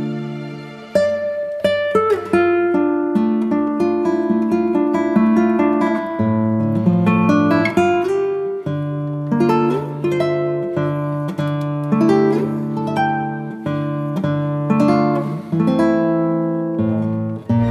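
Background music: an acoustic guitar plucking a melody, one note after another, each ringing and fading.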